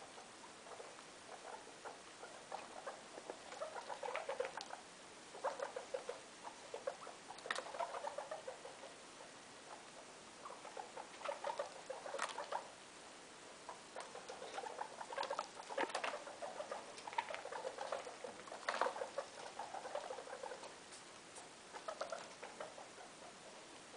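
Guinea pigs scurrying and rustling through loose hay on carpet, in about eight short crackly bursts of a second or so each.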